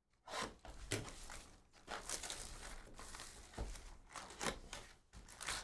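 Plastic shrink-wrap being torn and crinkled off a sealed trading-card box, followed by the cardboard box being pried open: irregular rustling with several sharp crackles.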